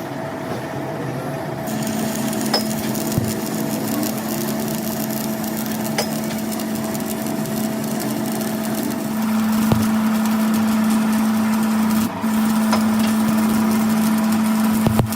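Machine-shop machinery running with a steady hum over a loud scratchy crackle, with a few sharp clicks. The hum grows louder about nine seconds in and drops out for a moment a few seconds later.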